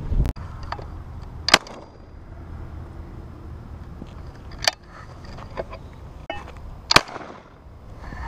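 Three shotgun shots, about three seconds apart, the last one the loudest with a short ringing tail.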